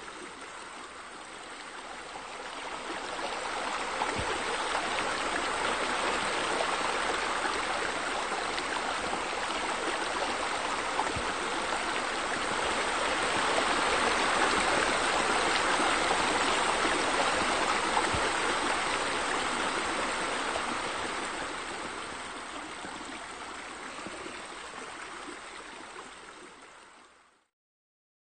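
Steady rush of running, splashing water. It swells after a few seconds and again around the middle, then fades and cuts off about a second before the end.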